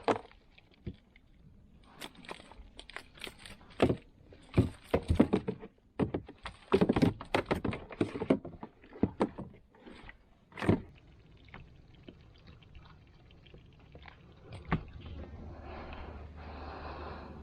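Irregular knocks, clunks and scrapes of gear being handled in a small aluminium boat, densest and loudest through the middle. A steady rushing noise with a low hum sets in near the end.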